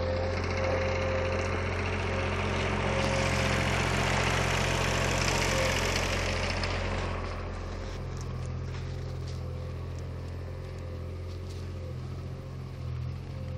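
Skid-steer loader's engine running steadily: a low drone with a faint steady whine above it. A louder rushing noise swells over the first half and dies away about halfway through.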